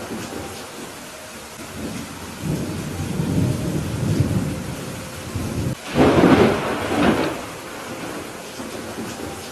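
Thunderstorm with steady rain: a low rumble of thunder builds a couple of seconds in, then a sudden loud clap about six seconds in that fades over a second or so.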